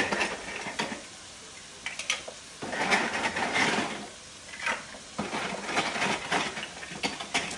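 Dry jumbo pasta shells rattling in their cardboard box and clattering into a pot of water, in several irregular bursts.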